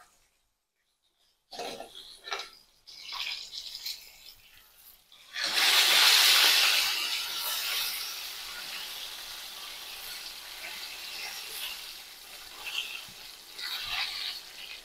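Battered oyster mushroom going into hot deep-frying oil: a few light clicks of metal tongs, then about five seconds in a sudden loud burst of sizzling that eases into a steady bubbling sizzle as it fries.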